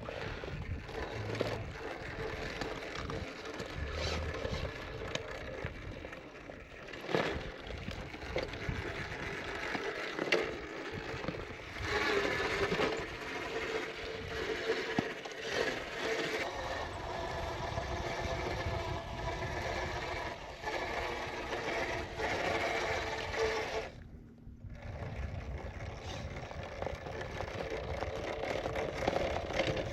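A 1/10-scale RC crawler's small electric motor whining as its tyres scrape and grind over rock, with a brief break about 24 seconds in.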